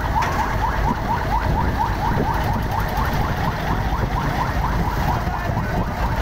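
A siren-like alarm sounding continuously as a rapid train of short rising chirps, about four or five a second, over a steady low rumble.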